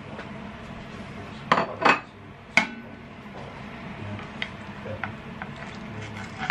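A metal spoon and a ceramic plate clinking: three sharp clinks about a second and a half to two and a half seconds in, the last one ringing briefly, then a few lighter taps.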